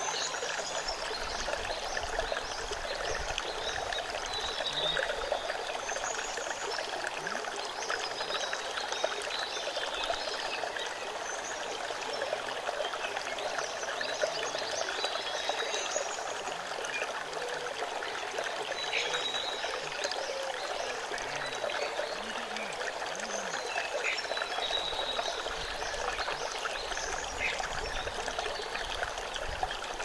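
Shallow rocky stream running steadily over stones and a small rock lip, with water trickling and splashing close to the microphone.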